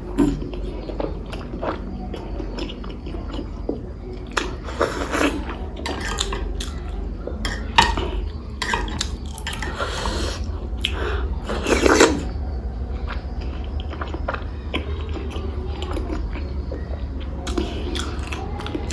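Close-up eating sounds: chewing boiled egg and spicy tomato pickle, with scattered clicks and clinks against a plate or dish.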